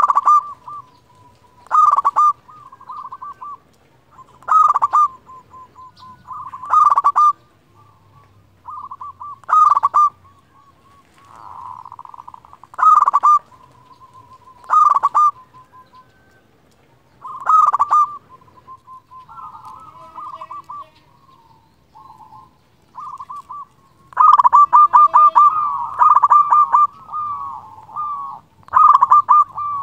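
Zebra dove (local perkutut) cooing: a call every two to three seconds, each a quick run of notes trailing into a steady coo. Near the end the calls come back to back.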